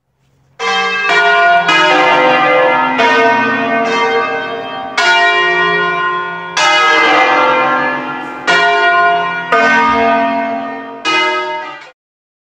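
Church bells struck one at a time in a slow melodic sequence, about ten strokes, each ringing on and fading until the next. The ringing cuts off suddenly near the end.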